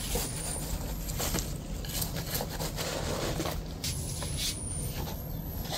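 Light rustling and scraping of a plant, its root ball and soil being handled and set into a planter, over a steady low rumble.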